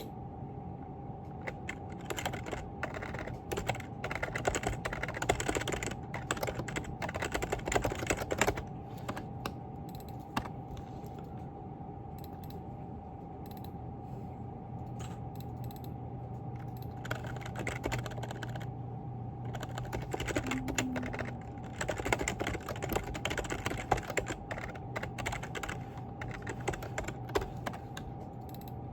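Typing on a computer keyboard in quick runs of key clicks, with a sparser, quieter stretch in the middle, over a steady hum.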